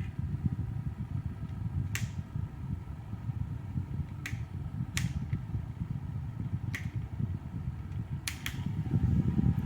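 Electric fan running, its airflow making a low rushing noise on the microphone, with several sharp clicks. Near the end the rushing gets louder and a faint steady whine comes in.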